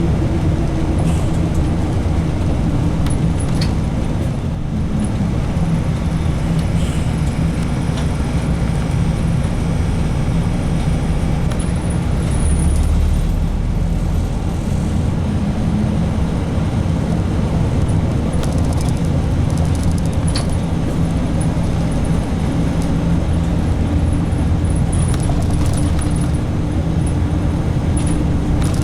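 Route bus heard from inside its cabin while driving, with a steady engine drone and road noise. A few faint clicks and rattles come now and then, and the low rumble swells briefly about halfway through.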